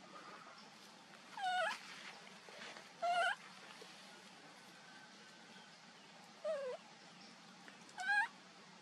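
Baby macaque giving four short, high-pitched cries, a second or more apart, each bending in pitch.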